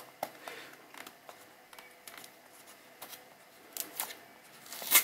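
Fingertips scratching and picking at the seal on a Samsung Galaxy S24 Ultra's cardboard box: a string of small clicks and scrapes, with a louder scrape just before the end.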